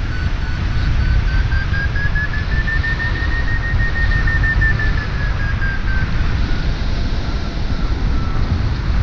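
Airflow buffeting the microphone in flight under a hang glider, with a variometer beeping in rapid even pulses. Its pitch rises gently toward the middle and falls away, fading out near the end, as the climb strengthens and then weakens.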